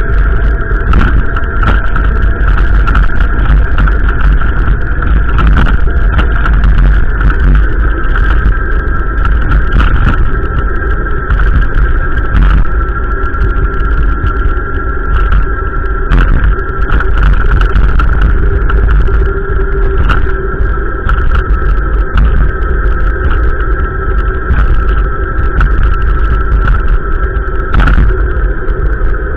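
Strong gusty wind buffeting the microphone with a loud, continuous rumble, overlaid by a steady high tone and scattered crackles.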